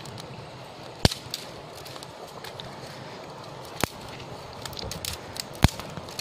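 Dry twigs snapping sharply three times, about two seconds apart, over faint crackling from a small stick fire.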